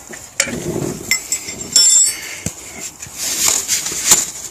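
Metal clinks and scrapes of a 22 mm spanner on the reverse light switch in the gearbox casing as it is turned loose, a few sharp clicks spread out with some rustling handling noise near the end.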